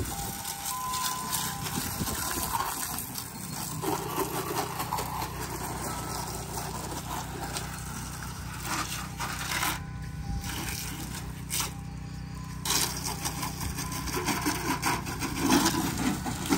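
A water stream from a house-washing spray wand hissing against vinyl siding and soffit, over the steady hum of the washing rig's pump motor.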